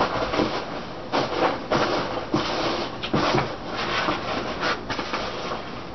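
Hands rummaging through a cardboard shipping box and its packing: irregular rustling and scraping with short knocks.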